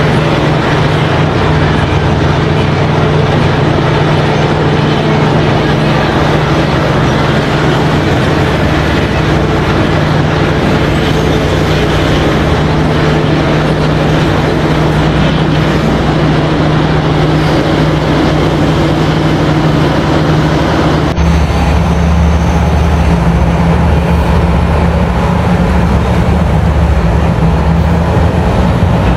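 Huge Komatsu PC7000 mining excavator running and digging, with a steady low engine drone. About two-thirds of the way through, the sound switches abruptly to a Komatsu PC5500 excavator loading a haul truck, with a deeper drone.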